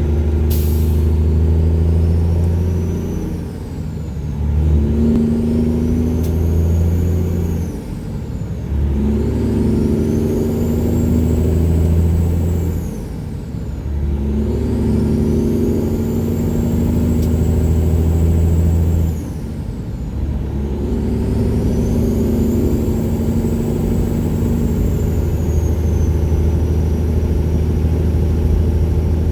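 1999 Peterbilt 379's Detroit Series 60 inline-six running loud through 7-inch straight pipes, pulling under load with a turbo whistle that rises and falls. The engine note dips briefly four times, about every four to five seconds, as the 18-speed is shifted up through the gears.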